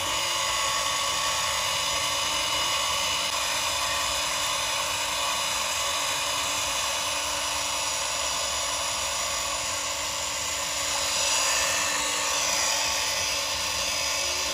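Small electric motors and gearboxes of a Huina radio-controlled toy excavator whining steadily as it drives on its tracks through shallow muddy water, swelling slightly louder near the end.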